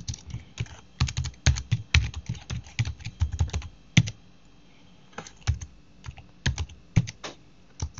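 Typing on a computer keyboard: quick runs of keystrokes, a brief pause about four seconds in, then slower, scattered keystrokes.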